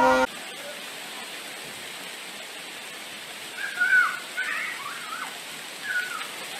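Steady hiss of volcanic ash and sand raining down. A few short high calls cut in about four seconds in and again near six seconds.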